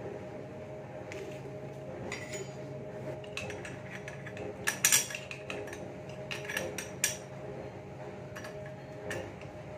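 Metal parts and hand tools clinking and clattering as a scooter's CVT drive pulley is fitted by hand and spanners and bolts are picked up off a concrete floor, with the sharpest clinks about halfway through, all over a steady low hum.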